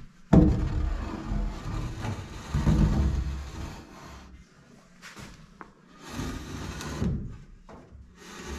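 Wood scraping and rubbing with knocks close to the microphone, in a long bout that starts suddenly and then shorter bouts near the end.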